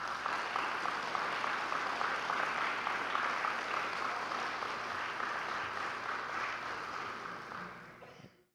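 Audience applauding, a steady round of clapping that fades away near the end.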